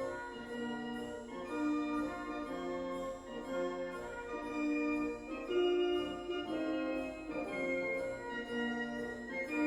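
Instrumental background music: sustained organ-like chords and melody notes, changing about once a second.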